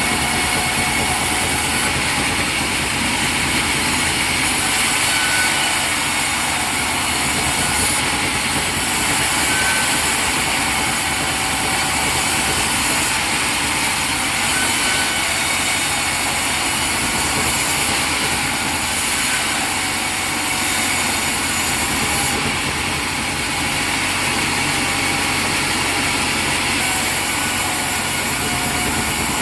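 Sawmill machinery running steadily, a continuous engine-like drone with a high hiss that swells and fades every few seconds.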